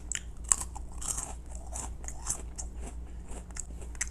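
Close-up crunching and chewing of a crispy cereal tube snack filled with milk cream, with irregular sharp crunches as it is bitten and chewed.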